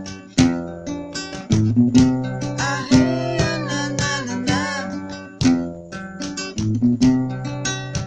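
Instrumental music: quick, sharply plucked string notes over held low bass notes, with a wavering melody line on top.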